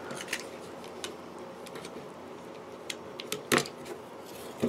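Scattered light clicks and taps from hands handling a small pickup winding machine's plastic case and its packing while unboxing it, with one louder knock about three and a half seconds in.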